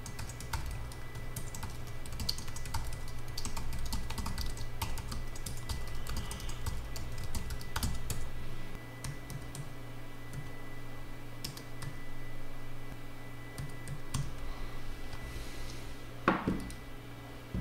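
Typing on a computer keyboard, in quick runs of keystrokes for about the first nine seconds, then sparser keystrokes, over a faint steady hum. A brief louder sound falling in pitch comes near the end.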